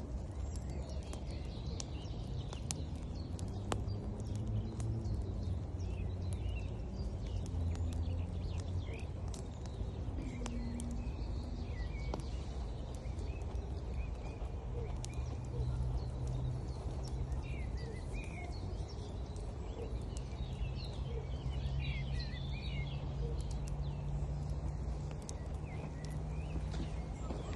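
Wood fire crackling with frequent small pops, birds singing, and the steady rush of a river, with a low hum underneath.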